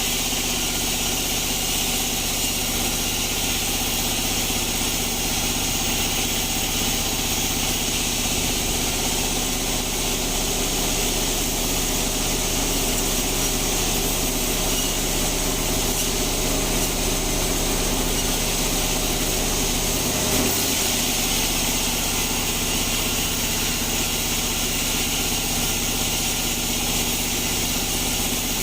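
Band sawmill running steadily: an engine-like hum with a strong hiss over it, the sound changing slightly about twenty seconds in.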